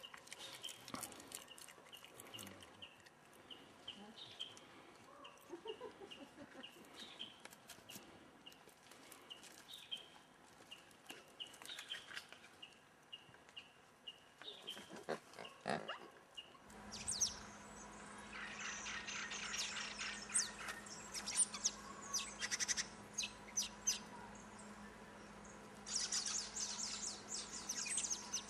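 Birds chirping and calling, with a short high call repeated about twice a second through the first half. About 17 seconds in the sound changes: a steady low hum sets in under busier, quicker bird chirps and trills.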